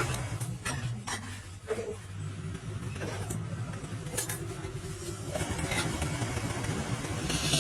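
Steady low hum of a running motor, with scattered sharp knocks and clicks of tools and wood being handled.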